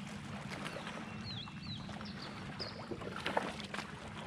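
Low, steady hum of the fishing boat's motor, with a bird chirping twice about a second in and a few light knocks around three seconds in.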